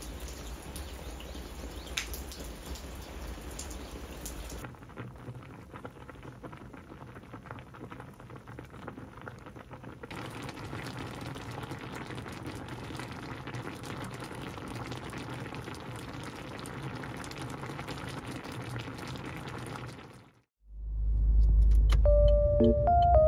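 Rain falling steadily for the first few seconds. After a cut, and from about ten seconds in, a pan of spicy tteokbokki with ramen noodles bubbling as it simmers. Background music with a plinking melody and a heavy beat comes in near the end.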